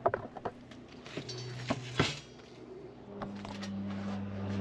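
Light clinks and knocks of thin stainless-steel panels as a folding grill's lid is seated, several in the first two seconds. A steady low hum carries on underneath and grows louder from about three seconds in.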